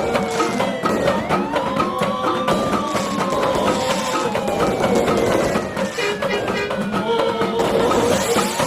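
Rhythmic drumming with sharp wood-block-like strikes, over which a siren wails: a quick rise in pitch about a second in, then a long slow fall, and a second rise near the end.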